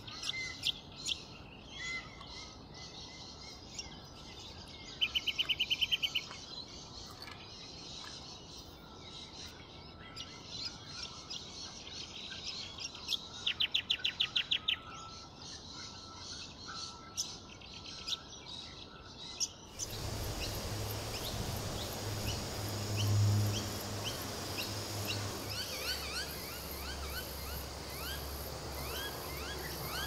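Brown honeyeater singing: scattered short chirps and two rapid trills of quickly repeated notes, each lasting about a second. About twenty seconds in, the sound changes to a louder, steady chorus of insects and many short bird chirps over a low rumble.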